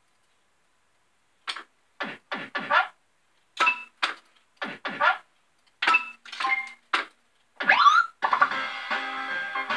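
Family Guy fruit machine's electronic game sounds: a string of short pitched bleeps and jingles as the reels play out, with a rising glide about eight seconds in, then a looping synthesized tune from there on.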